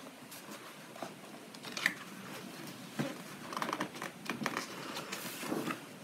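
Paper rustling with small taps and clicks as hands handle and turn a page of a paperback colouring book of sturdy medium-weight paper, the page turn coming near the end.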